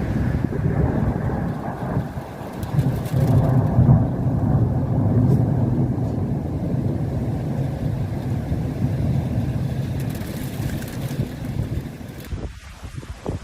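Long low rolling rumble of thunder during a snowstorm. It swells a few seconds in and slowly dies away near the end.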